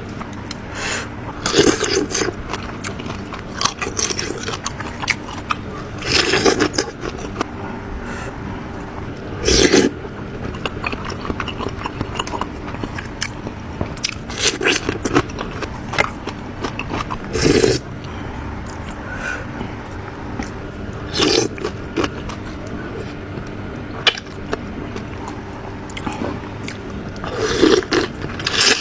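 Close-miked eating sounds from a seafood mukbang: chewing and wet mouth noises, with short loud bursts every two to four seconds.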